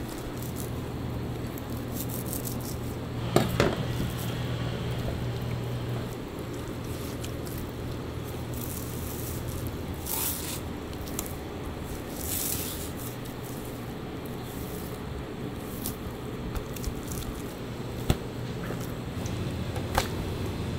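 Raw pork belly being prepared by hand: a knife slicing through the meat and gloved hands rubbing herb stuffing into it, with wet squishing and scraping. A few sharp knocks stand out, the loudest about three seconds in, over a steady low hum.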